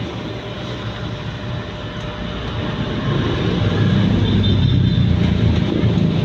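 Yamaha Sniper 155's single-cylinder engine running through an aftermarket NLK racing muffler, getting louder about three seconds in.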